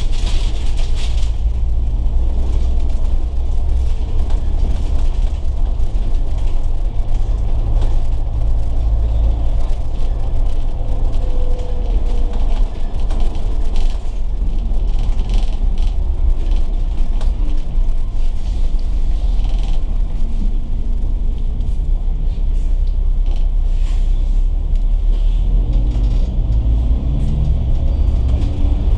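Volvo B9TL double-decker bus running with a steady low rumble, with a brief hiss at the start. Near the end the engine note rises as the bus accelerates.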